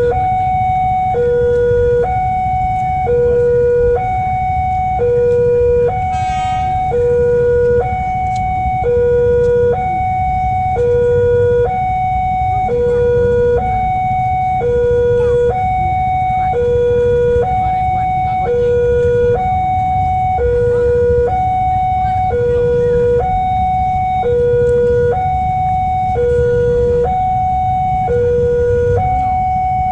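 Railway level-crossing warning alarm sounding a two-tone electronic chime, a higher and a lower tone alternating steadily, each held about a second, the signal that a train is approaching the crossing. A low rumble of traffic runs underneath.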